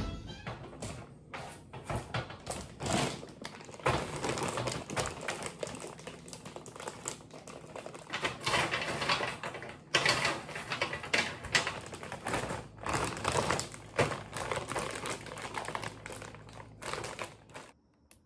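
Brittle dehydrated vegetable pieces clicking and clattering as they are handled off the drying trays and dropped into a plastic zip-top bag. The clatter is dense and irregular, like typing, and stops suddenly near the end.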